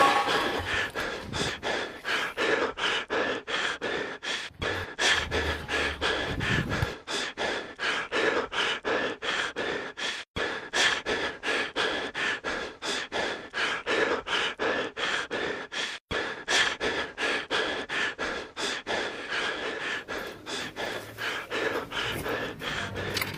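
A person panting heavily and rapidly, about three breaths a second, in a steady rhythm.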